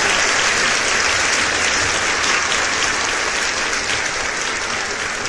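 Crowd applauding, a dense, steady clapping that slowly gets quieter.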